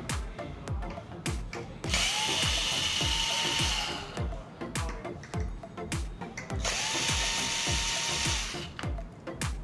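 Cordless electric screwdriver running in two bursts of about two seconds each, backing out the screws that hold the Y-drive board of a plasma TV. Background music with a steady beat plays under it.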